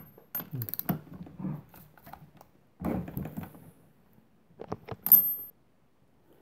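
Metal clinks and rattles of a 3/4-inch spark plug socket and wrench being handled, in three clusters of short clicks. The sharpest clink comes about five seconds in and rings briefly.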